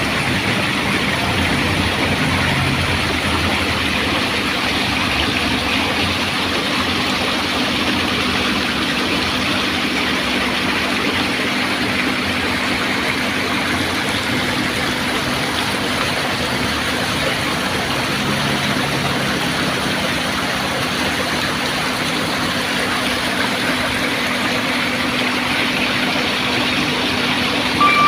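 An engine running steadily: an even hum under a hiss, with no change in speed.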